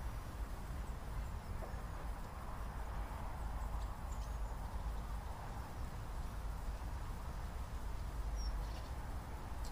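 Steady outdoor ambience: a low rumble under an even hiss, with a few faint, short, high bird chirps about four seconds in and again near the end.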